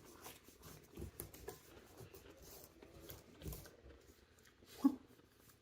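Faint, scattered rustling and light clicks of snack packaging and crumbs being handled at a table, with one short, louder blip near the end.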